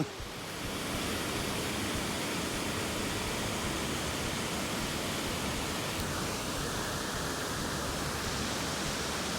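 Kakabeka Falls, a large waterfall, making a steady loud rush of falling water, with a short click right at the start.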